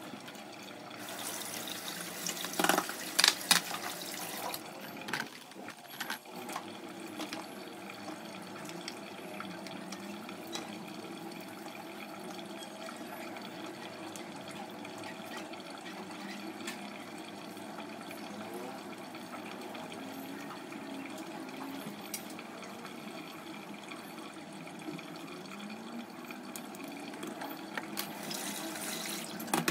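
Water running in a kitchen, louder for the first few seconds, with a few sharp clinks about three seconds in.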